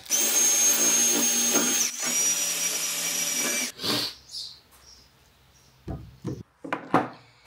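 Cordless drill running at a steady speed in two bursts of about two seconds each, with a brief stop between. Then a few short clicks and knocks as a bar clamp and tools are handled.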